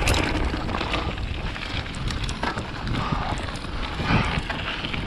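Wind rushing over the riding camera's microphone, with the clatter and knocks of a mountain bike rattling over rough trail.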